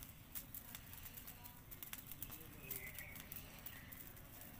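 Dry brush fire burning, with scattered sharp crackles and pops from the burning twigs and stalks. A few faint bird calls come in near the middle.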